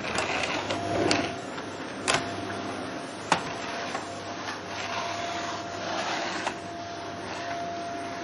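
Vacuum cleaner running on a wooden floor: a steady motor hum and whine under suction noise that swells and fades as the nozzle is pushed back and forth, with two sharp knocks of the head against the floor or furniture about two and three seconds in.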